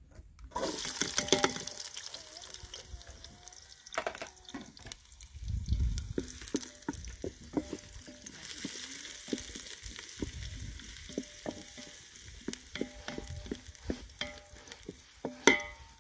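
Chopped red onions sizzling as they drop into hot oil in a metal saucepan about half a second in, then frying while a wooden spoon stirs them, with scattered clicks of the spoon against the pot and one sharp clack near the end.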